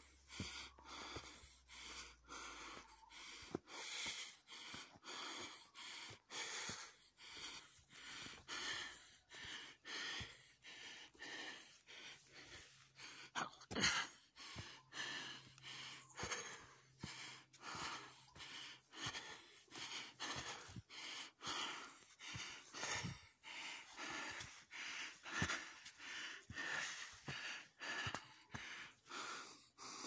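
A person breathing hard close to the microphone while walking briskly, the breaths coming roughly once a second, with footsteps on a dirt path.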